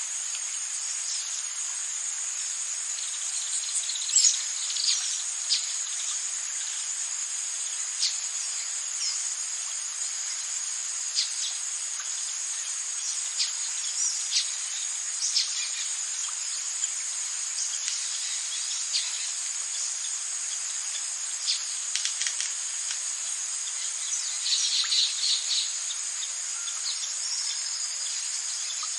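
Rainforest ambience: a steady, high-pitched chorus of insects, with short bird calls and chirps breaking in now and then and a quick run of calls near the end.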